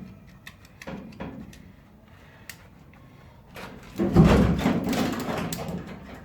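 Sheet-metal floor panel being shifted into place in a car body shell: a few light knocks, then about four seconds in a loud scraping clatter of metal on metal with a dull thud, fading over a second or two.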